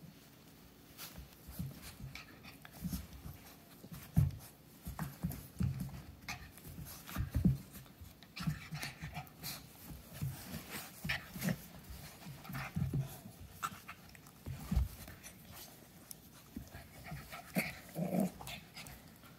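An adult dog and a puppy play-fighting: short low growls and grunts coming irregularly, with panting and the clicks of snapping jaws.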